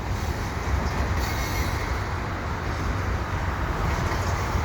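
Freight train with double-stack container cars rolling past, a steady low rumble of wheels and cars. A faint high wheel squeal comes in about a second in.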